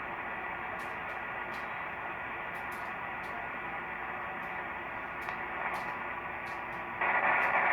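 Static hiss from a software-defined radio receiver's speaker, tuned to an empty 11-meter CB channel with no station coming through. The hiss is steady with faint scattered ticks, and gets suddenly louder about seven seconds in.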